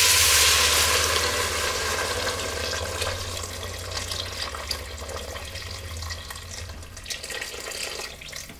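Water poured in a steady stream from a metal spout into a stainless-steel pot of sautéed vegetables, splashing loudest at first and growing gradually softer as the water deepens in the pot.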